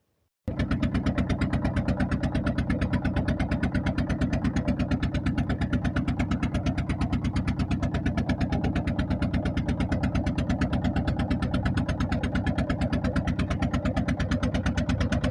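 Ferry boat's engine running loud and close, with a fast, even beat and no change in speed; it starts abruptly about half a second in.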